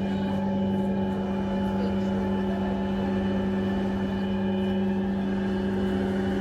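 A steady electronic drone: a strong low hum with several fainter held tones above it over a low rumble, unchanging throughout.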